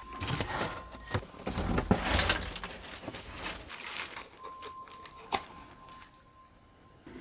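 Footsteps, rustling and knocks of someone moving through debris on the floor, loudest about two seconds in. A faint steady high tone sounds twice, each lasting a second or two.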